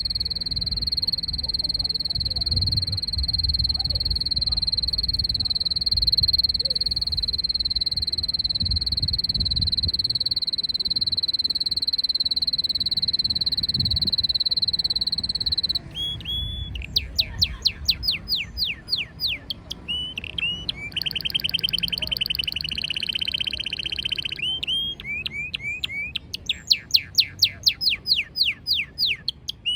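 Red canary singing: a long, steady, high note held for about the first half, then quick runs of repeated falling whistled notes broken by a fast trill. A low rumble lies under the first part.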